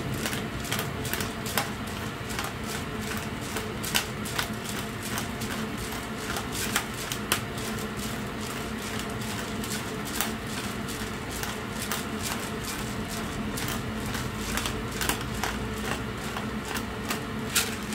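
Pepper mill grinding black peppercorns, a quick irregular crackle of crunching clicks, several a second, under a steady low hum.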